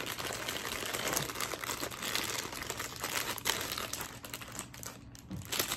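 Clear plastic bag crinkling and rustling as hands open it and pull out the wrapped items inside. The sound is continuous at first, thins out near the end, and a last short crinkle comes just before it stops.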